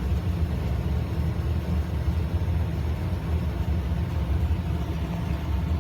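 Furnace and its blower running while the air conditioning is on: a steady low rumble with no distinct bangs.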